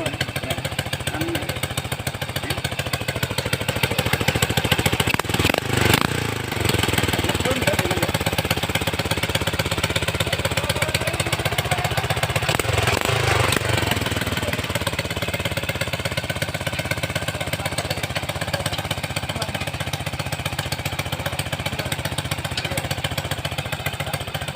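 Motorcycle engine running steadily, with rapid even firing, as it drives a homemade corn planter and tiller. It briefly gets rougher and louder around six seconds in and again about halfway through.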